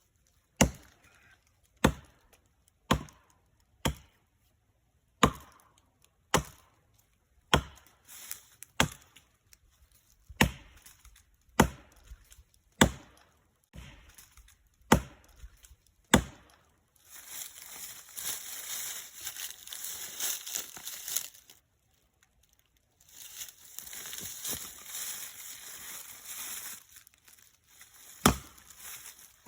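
Axe chopping into a tree trunk, single sharp strikes about once a second, around fourteen in a row. These are followed by two stretches of steady rasping noise lasting a few seconds each, and then two more strikes near the end.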